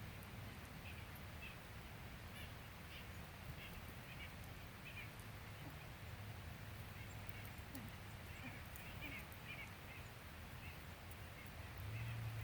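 Faint bird calls, short and scattered, repeating every second or so over a low steady rumble.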